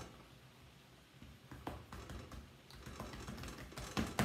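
Hands patting and pressing a ball of pie dough flat on a floured countertop: a string of irregular soft taps, with a louder slap near the end.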